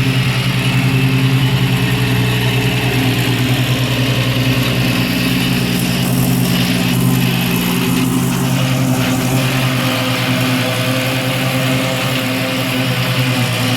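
Iseki TX1510 compact tractor's engine running steadily at constant speed while working with a Coroni mower, the mower's whirr mixed in above the engine note.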